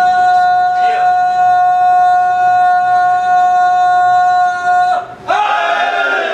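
A loud, steady, unwavering held tone with no change in pitch. It cuts off abruptly about five seconds in, and wavering voices follow.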